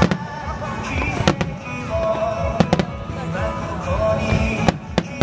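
Aerial firework shells bursting in a starmine display, several sharp bangs about a second apart, over music playing throughout.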